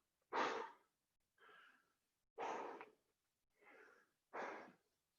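Heavy breathing of someone out of breath just after a minute of burpees. There are three loud breaths about two seconds apart, with fainter breaths between them.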